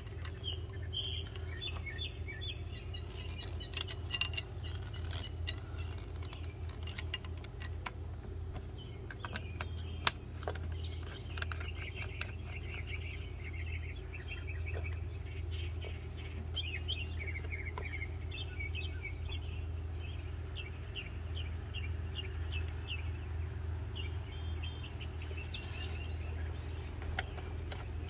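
Small birds chirping in quick repeated notes, with a few sharp clicks from plastic hose fittings being handled and a steady low hum underneath.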